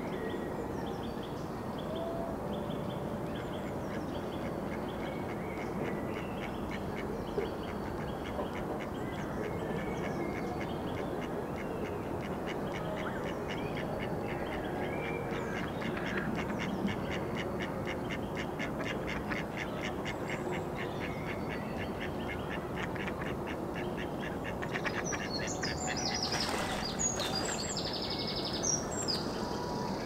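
Ducks quacking on a small lake in a long run of quick repeated calls, over a steady outdoor hiss. Songbirds chirp faintly throughout, with brighter, higher chirps near the end.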